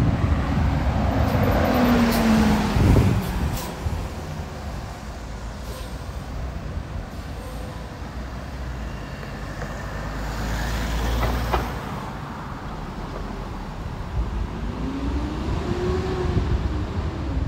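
Road traffic at a city intersection. A car passes close by in the first few seconds, its engine note falling as it goes. A second vehicle swells past about ten seconds in, and near the end an engine note rises as a vehicle accelerates away.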